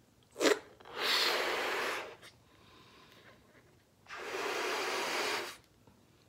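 A person blowing up a latex party balloon by mouth: a short sharp puff about half a second in, then two long breaths blown into the balloon, each about a second and a half, with a faint inhale between.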